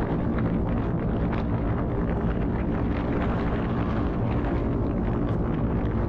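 Dodge Dart rally car running steadily under way, engine and road noise at a constant level.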